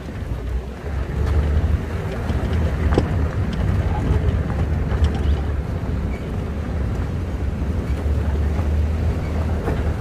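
Safari vehicle driving along a rough dirt forest track, its engine a steady low rumble with wind buffeting the microphone. A couple of sharp knocks from the ride come about three and five seconds in.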